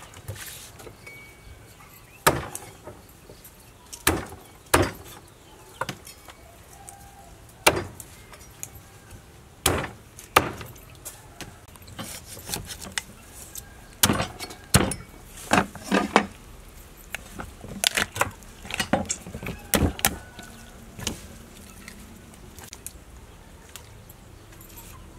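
Cleaver chopping a whole raw chicken on a wooden chopping block: sharp single chops a second or two apart, then quicker runs of chops in the second half.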